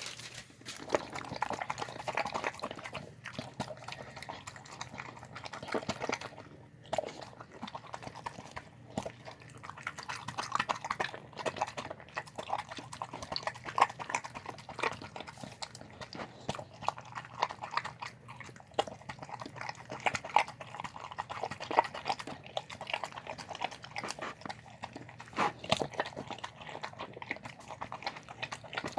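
A dog eating a meal of chicken, salad and rice from its bowl: a dense, irregular run of chewing and biting sounds that begins abruptly.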